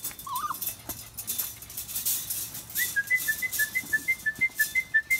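Briard puppies' claws scratching and clicking on concrete, with a short wavering puppy squeak about a third of a second in. About halfway through, a bird starts whistling a quick two-note phrase, high and low notes alternating over and over.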